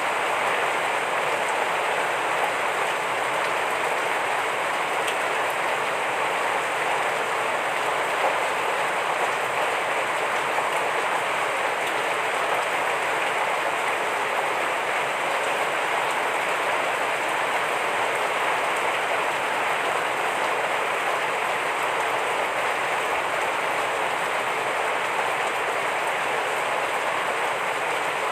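Heavy rain falling steadily: an even, unbroken hiss of drops that holds the same level throughout.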